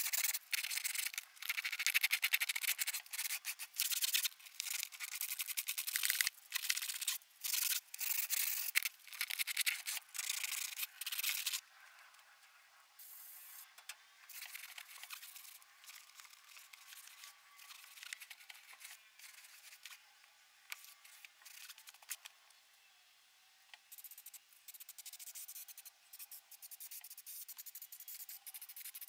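Hand sanding with 60-grit sandpaper on a rubber floor covering, rapid back-and-forth scrubbing strokes to roughen the surface for glue. The strokes stop about eleven seconds in, followed by quieter occasional rubbing. Near the end comes a steady hiss from an aerosol spray can.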